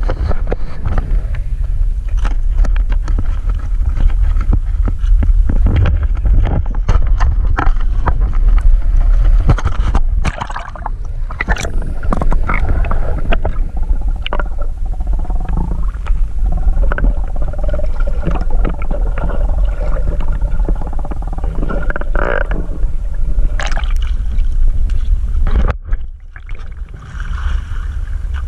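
Underwater sound picked up by an action camera in its housing: a heavy low rumble of moving water with bubbling and knocks, and a wavering hum through the water in the middle. The rumble drops off near the end as the camera comes up above the surface.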